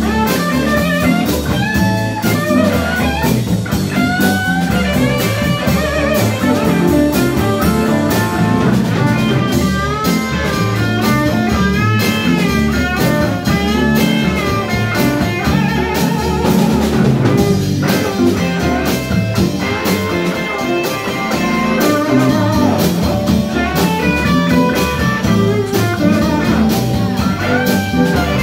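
Live blues band playing: electric guitars over a drum kit with a steady beat, a lead line of bending notes running over the rhythm.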